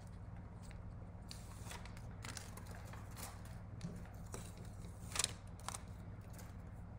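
Masking tape being peeled off card stock, a run of short scratchy rustles and crinkles of paper and tape, with one sharper crackle about five seconds in, over a faint steady low hum.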